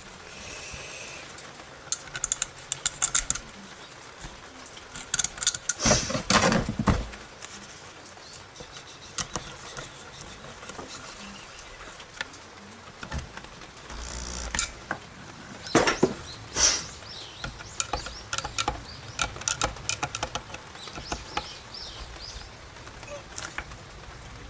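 Scattered light metal clicks and taps as a replacement generator coil and its screws are handled and fitted into a motorcycle's generator cover, with a longer clatter about six seconds in.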